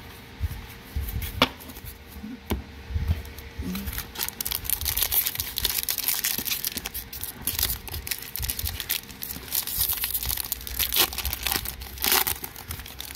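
Foil Magic: The Gathering booster pack wrapper being torn open, then crinkling and crackling as the cards are worked out of it. A few sharp clicks come before the tearing starts, and there is a louder crack near the end.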